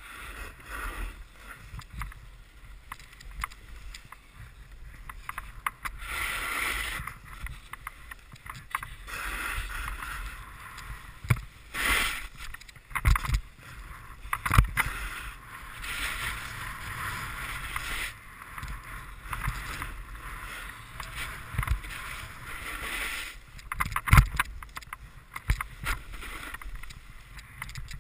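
A snowboard sliding and carving over hard, chunky snow, heard on a camera worn by the rider: a rough scraping hiss that swells in long stretches on the turns, over a low wind rumble. There are sharp knocks from the bumpy snow a few times, the loudest near the end.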